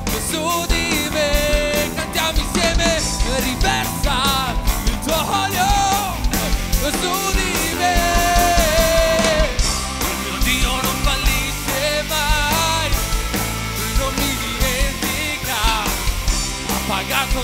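Live rock-style worship band playing: a male lead voice sings long, sliding melodic lines over steady drums and a full band.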